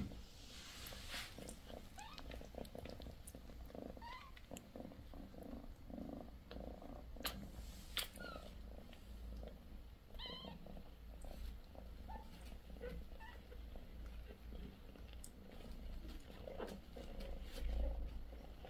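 British Shorthair cat purring steadily, with a few short, rising, high squeaks from the 16-day-old kittens about four and ten seconds in.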